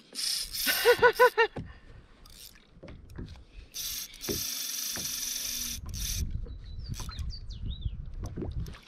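Spinning reel on a light rod working against a hooked bonefish: the drag gives line in a steady buzz lasting about two seconds, with reel handling clicks around it. A few short cries about a second in.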